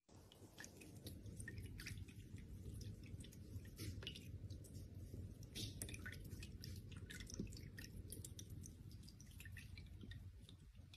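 Faint drips and small splashes of water at a cat's drinking fountain as a kitten laps at it and paws the water, many small irregular ticks over a low hum.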